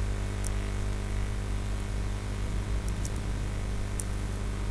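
Steady electrical hum with an even hiss from the recording setup, with a few faint short clicks: one about half a second in, a pair near three seconds and one about four seconds in.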